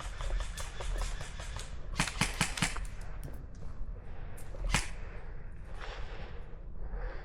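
Airsoft guns firing: a quick run of four sharp cracks about two seconds in, then a single crack a little before five seconds, over a steady low rumble.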